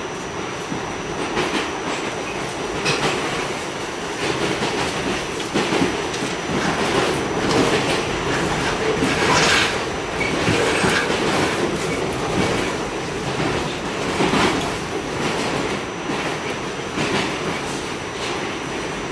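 Interior of an R46 subway car running between stations: a steady rumble of wheels and running gear, with irregular clacks as the wheels pass over rail joints.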